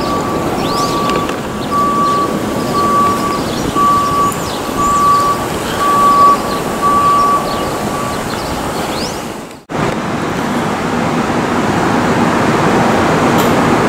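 A vehicle's reversing alarm beeps about once a second over city traffic noise, then stops about eight seconds in. The sound cuts out for a moment, then steady traffic noise with an engine hum continues.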